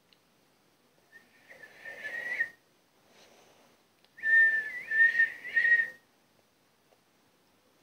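A person whistling two short phrases, the second longer, holding near one high note with small upward slides and a breathy hiss of air under it.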